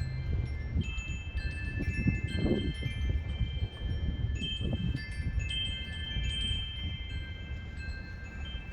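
Wind chimes ringing irregularly in the wind, many overlapping metallic tones, over a low rumble of wind on the microphone.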